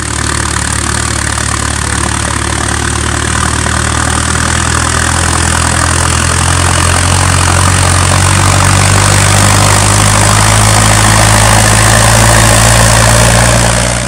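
International Harvester diesel tractor working under load as it pulls a full trailer of chopped maize silage, its engine running with a steady low note that grows louder as it comes closer.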